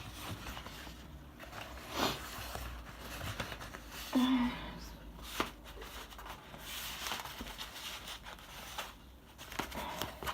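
Faint rustling and crinkling of unboxing packaging being handled, with a few soft knocks.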